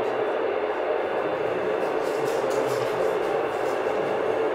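Steady hiss of FM radio static from the ground-station transceiver's speaker, with no station being received: the signal from the space station has gone.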